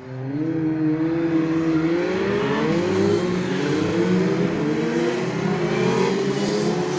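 Race car engine accelerating hard, starting suddenly, its pitch climbing again and again as it pulls up through the gears.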